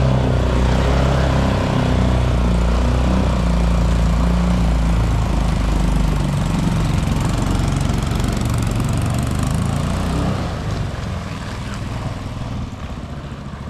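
Small boat's long-tail mud motor running steadily at speed as the dinghy drives up a shallow river, with the rush of its prop wash. It grows fainter from about ten seconds in as the boat moves away.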